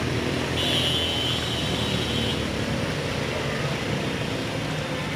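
A vehicle engine running steadily under a constant noisy hiss, with a thin high-pitched tone for about two seconds starting about half a second in.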